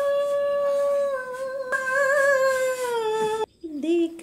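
A person humming one long high note that wavers slightly and slides down near the end before breaking off, followed by a lower hummed phrase starting just before the end.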